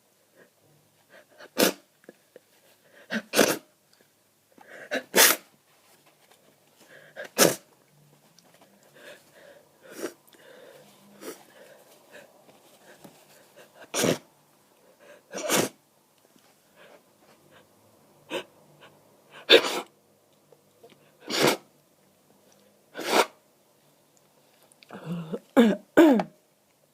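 A person with a snotty head cold in a sneezing fit: about a dozen sharp sneezes every few seconds, with breathing between, and a quick run of them near the end.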